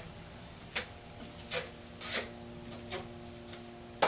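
3-inch drywall knife scraping quickset setting compound over a ceiling patch and off the mud pan: short scraping strokes every half second or so, with a sharp click near the end.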